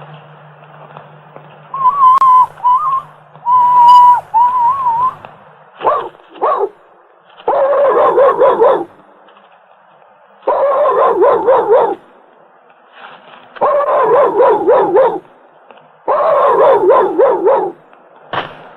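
Wavering whistle-like tones, then a run of dog whines: four wobbling, whimpering calls of about a second and a half each, with short pauses between them.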